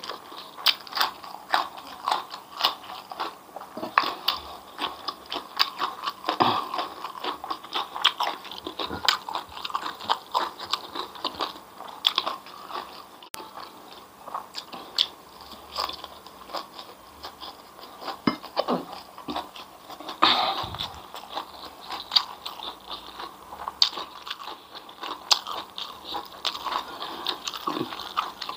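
Close-miked chewing of crisp food, fried grasshoppers with raw vegetables, with many quick, sharp crunches and a few louder bites.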